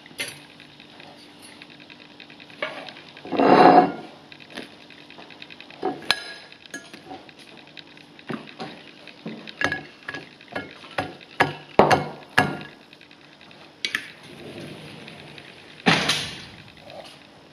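Metal fork clinking and scraping against a ceramic serving platter and plate as grilled food is served, in irregular light taps. Two louder, longer noises come about three and a half seconds in and near the end.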